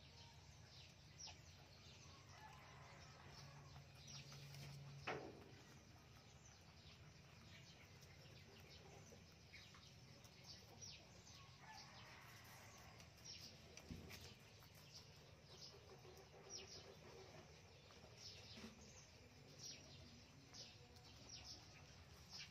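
Near silence: a faint low background hum with scattered soft, short high ticks, and one brief falling sound about five seconds in.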